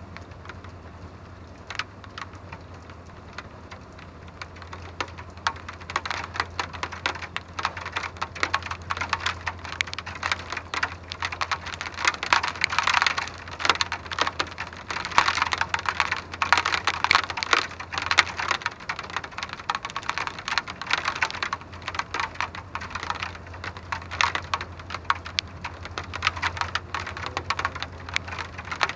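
Raindrops striking a hard surface: dense, irregular ticking that grows thicker and louder about five seconds in, over a faint steady low hum.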